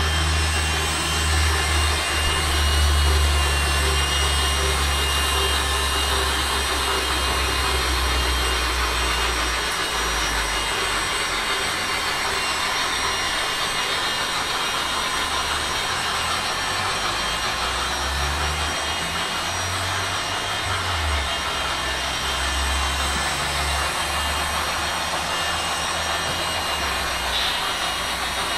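Blade MSR micro RC helicopter's small electric motors and rotors whirring steadily in flight, with a thin high whine. A low rumble underneath is strong for the first ten seconds or so, then comes and goes.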